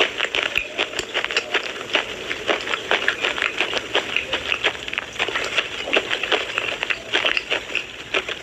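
Close-miked crunching of slate pencil being bitten and chewed: rapid, irregular crisp cracks, several a second.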